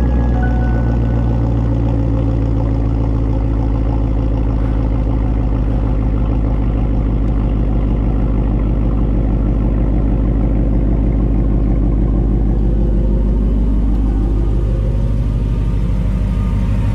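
Coyote 5.0 L V8 of a 2018 Mustang GT breathing through a Corsa Sport cat-back exhaust with X-pipe, idling steadily with a deep, even exhaust note. The pitch wavers slightly around twelve to fourteen seconds in but never rises into a rev.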